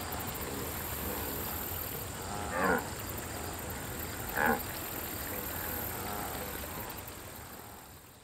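Two short grunts from a cartoon wildebeest, about two seconds apart, over a steady background hiss that fades away near the end.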